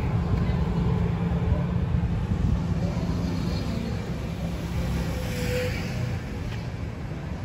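Street ambience: a steady low rumble of car traffic, with a brief higher sound a little past halfway.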